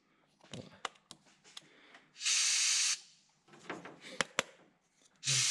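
Compressed air hissing in short bursts as it is fed into the turbocharged SR20DE's intake to pressure-test it for boost leaks. One burst comes about two seconds in and another starts near the end, with light clicks between them.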